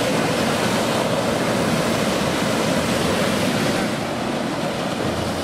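Ocean surf breaking on a beach: a steady rush of waves.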